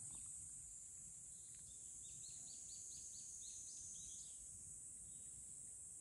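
Faint outdoor ambience: a bird gives a quick run of about ten short, high notes over about two seconds, against a steady high-pitched hiss.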